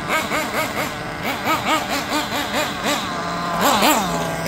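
Nitro (glow-fuel) RC buggy engine revving up and down in quick blips, about four a second, with a short steady idle between. It is loudest near the end as a buggy passes close by.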